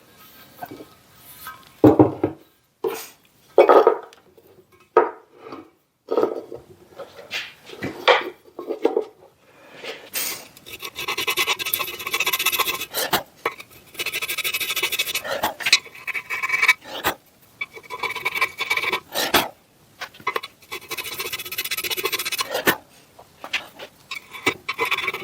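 A small lettering piece being filed down by hand to thin one side: scattered taps and clicks of handling at first, then a run of rasping file strokes, each a second or two long.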